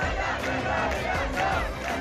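A street crowd of protesters, men and boys, shouting and chanting together, with music underneath.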